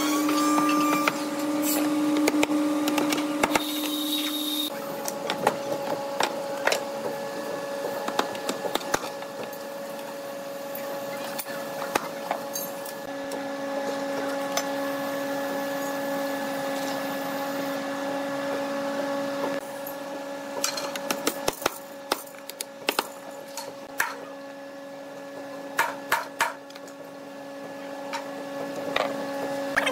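Workbench handling sounds as wooden cabinet-door frame pieces are laid out, squared with a metal ruler and glued: scattered knocks and clicks of wood and tools, busier in the last third, over a steady hum.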